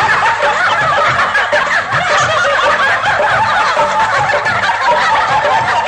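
Many voices laughing and chattering at once, a dense overlapping crowd of laughter that keeps an even loudness throughout.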